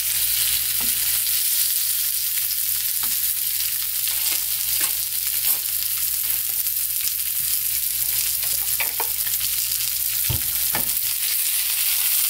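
Flour-coated hairtail pieces sizzling steadily in oil in a nonstick frying pan over the lowest heat, with scattered small pops and clicks and one soft low knock near the end.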